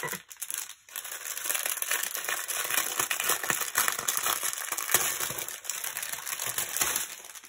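Plastic packaging of diamond-painting gem packets crinkling and rustling as it is handled, a dense crackle that starts about a second in and fades near the end.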